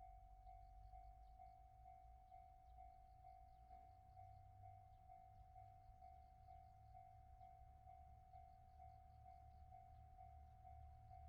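Faint Japanese railway level crossing warning bell ringing steadily, about two even dings a second, over a low rumble.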